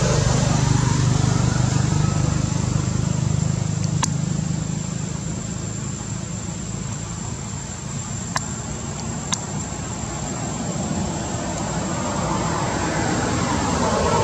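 Steady outdoor background rumble, heavier in the first few seconds and easing off, with a faint high steady whine and a few sharp clicks near the middle.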